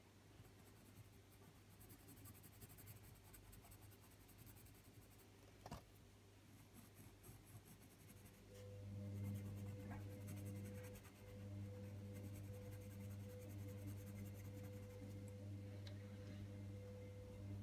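Faint scratching of a coloured pencil tip shading on paper, with one click about six seconds in. About halfway through, a low steady hum comes in and stays.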